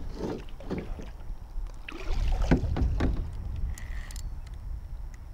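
Plastic kayak hull knocking and water sloshing against it, over a low rumble of wind on the microphone, with a brief high whine just before four seconds in.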